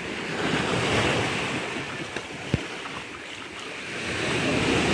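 Small waves washing up the shore, a steady rush that swells about a second in and again near the end, with one short thump about two and a half seconds in.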